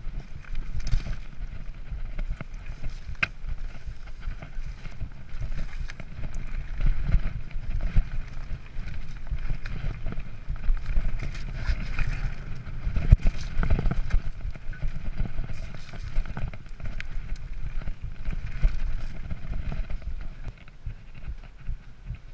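Mountain bike ridden fast over a rough stony singletrack, heard from a camera on the rider: a continuous low rumble of wind on the microphone mixed with a constant jumble of knocks and rattles as the tyres and bike go over the stones.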